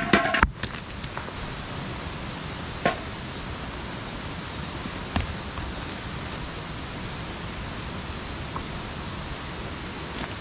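A clatter of knocks with a brief metallic ring near the start as stones meet the metal fire bowl while rocks are set around a fire pit, then a couple of single knocks later. Under it, a steady rushing outdoor background.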